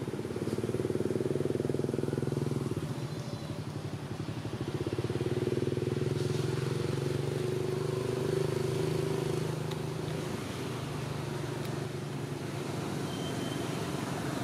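An engine running, growing louder twice for a few seconds each: about half a second in and again around five seconds in, then settling to a lower steady level.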